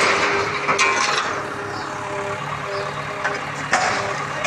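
Heavy machinery running with a steady engine hum at a demolition, with sharp knocks and clatter of breaking material about a second in and again near the end.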